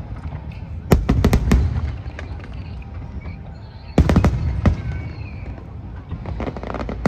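Aerial fireworks bursting: a quick cluster of sharp bangs about a second in, another about four seconds in, and a few lighter cracks near the end, over a continuous low rumble of booms.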